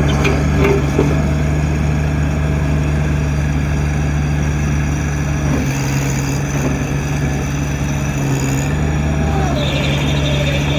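Engine of an MT85 walk-behind skid steer loader running steadily. Its speed dips slightly about halfway through and comes back up a few seconds later, with a few clicks at the start.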